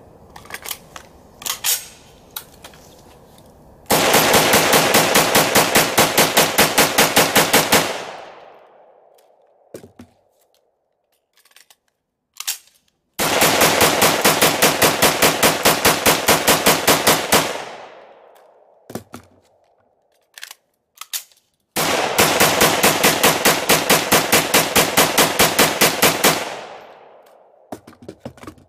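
SKS semi-automatic rifle with a Super Rapid Release trigger firing three fast strings of about four seconds each, around five shots a second, each a 20-round magazine emptied. Each string's echo trails off, and sharp metallic clicks and knocks from the magazine changes fall between the strings.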